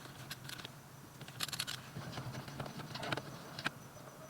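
Scattered small clicks and scratches of a screwdriver working screws out of a car's interior door panel, with a short scratchy rasp about a second and a half in.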